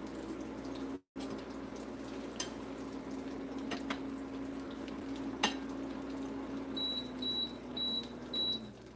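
Battered Oreos sizzling in hot oil in a small saucepan on an induction cooktop, over a steady hum from the burner, with a few sharp clinks of a fork against the pan. Near the end the cooktop's controls beep several times in quick succession, about two a second, as the heat is turned down.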